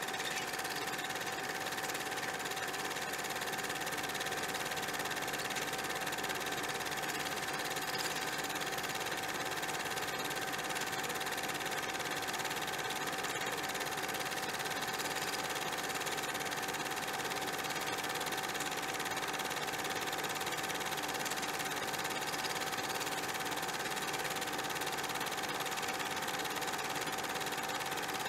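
A steady mechanical hum with a constant tone in it, unchanging in level.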